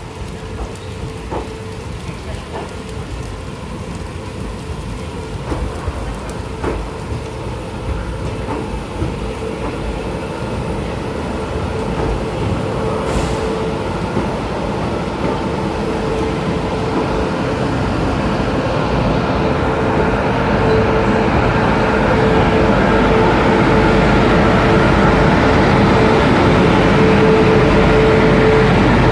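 Passenger train running on the rails, its noise growing steadily louder as it gathers speed after pulling out of a station. A steady hum runs underneath, and a few sharp clicks come in the first several seconds.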